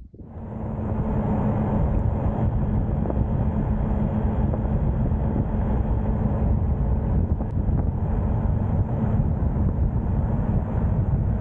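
A small Honda motorbike's engine running steadily under way, with road and wind noise over the microphone; it swells up over the first second as the bike gets moving, then holds level.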